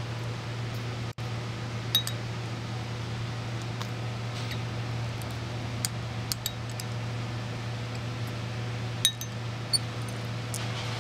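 A spoon clinking against a dish while sorbet is eaten: several short, sharp clinks at uneven intervals, over a steady low hum.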